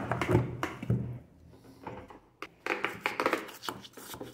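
Spatula scraping and knocking against the rim of a metal cake pan: a cluster of sharp knocks and scrapes in the first second, then another run of scraping and taps about two and a half seconds in.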